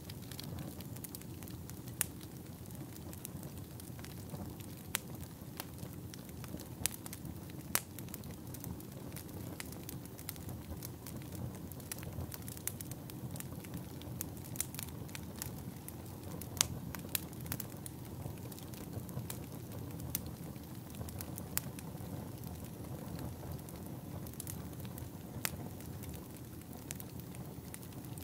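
Fire crackling: a steady low rumble of flames with irregular sharp pops and crackles scattered throughout.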